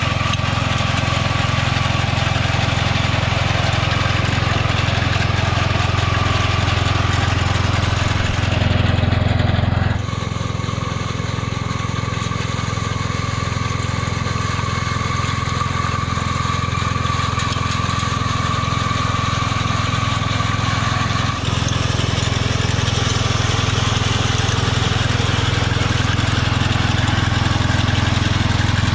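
Husqvarna Rider riding mower's engine running steadily, its sound shifting abruptly about ten seconds in and again about twenty-one seconds in.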